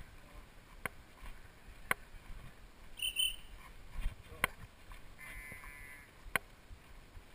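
Sharp knocks and clicks, a second or two apart, as two people walk carrying a wooden timber frame along a dirt path, with a short high chirp a little after the middle.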